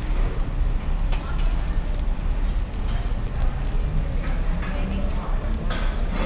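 Barbecue restaurant ambience: a steady low hum with meat sizzling on tabletop grills, faint background chatter and a few short clinks.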